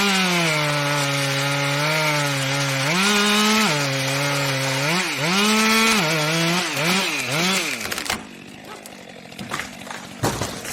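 Chainsaw running at high revs as it cuts, its pitch dipping and rising several times before it stops about eight seconds in. A few sharp cracks follow near the end.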